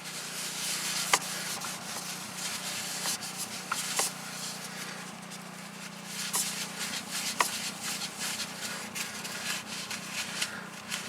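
Handling noise: rubbing and scraping with a few sharp clicks scattered through, over a steady low hum that fades out about two-thirds of the way in.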